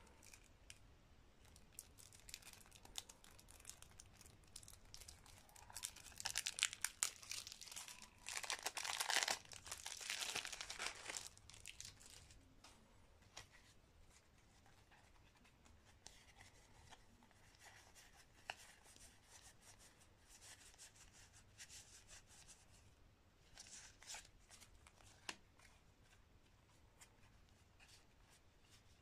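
Hands handling a thick stack of playing cards: a dry paper rustle with quick clicks, loudest for about six seconds in the first half, then faint scattered card sounds with a short burst near the end.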